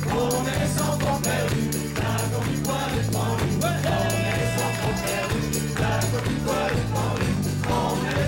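Live folk band playing an instrumental passage: a tambourine shaken in time over a steady, repeating bass line, with a long held note about four seconds in.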